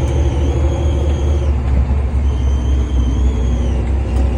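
Heavy diesel engine of farm machinery running steadily, a deep loud rumble with a faint high steady whine over it.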